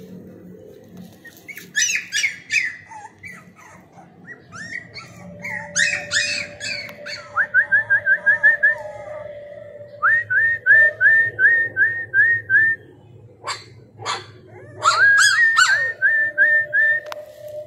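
Puppies yipping, with runs of short high rising whistle-like notes repeated at about three a second.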